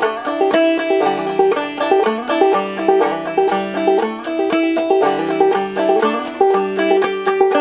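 Background music: a quick plucked-string tune with many short notes over a repeating bass line.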